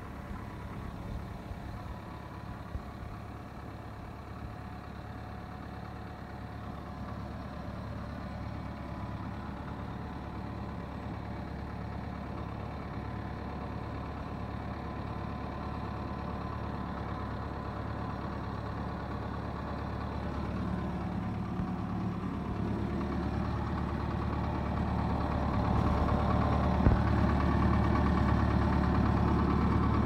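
Komatsu D30 crawler bulldozer's diesel engine running steadily as the dozer travels, growing louder over the last ten seconds. A single sharp knock sounds near the end.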